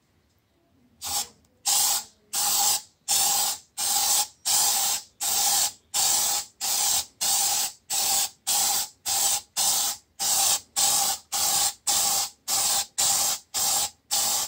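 Aerosol can of Kilz Upshot stain-blocking primer spraying upward in short hissing bursts, nearly two a second, each with a faint whistling tone: the primer is being feathered on a little at a time. The bursts begin about a second in.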